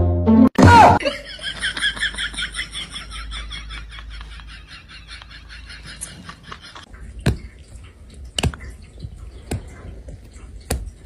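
High-pitched laughter in rapid repeated bursts lasting about six seconds, starting just after a short loud falling swoosh. It gives way to a few sharp clicks.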